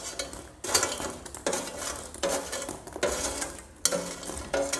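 A spoon scraping and stirring in a pan of hot milk as broken rusk pieces are pushed in from a bowl: a run of short rasping strokes, about one every three-quarters of a second.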